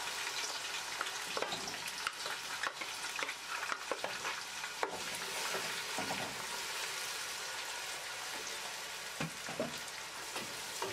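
Chopped onions sizzling steadily in hot oil in a pan, stirred with a wooden spoon that scrapes and clicks against the pan now and then.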